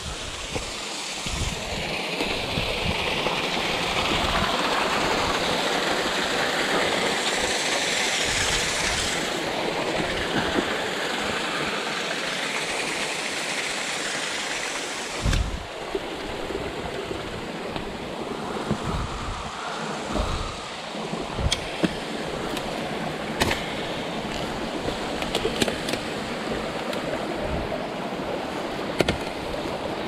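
Steady rush of a creek flowing over rocks, with scattered knocks and scuffs from a hiker's hands and feet on the rocks. There is a heavier thump about halfway through.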